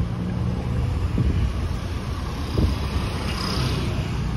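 Road traffic passing close by: car and motorcycle engines running, a steady low rumble of engines and tyres.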